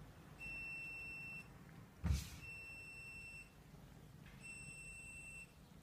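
Three high-pitched electronic beeps, each about a second long and about two seconds apart, with a single sharp knock between the first and second beep.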